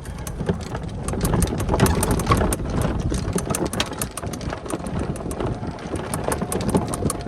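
Golf cart driving over the fairway, running steadily with many rattles and knocks from its body as it rolls over the ground.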